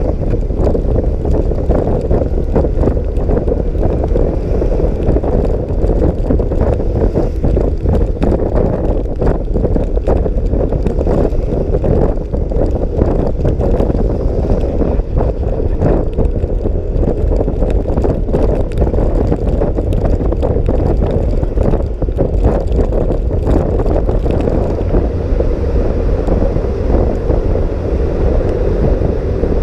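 Steady wind rush buffeting the microphone of a moving scooter, with engine and road noise underneath.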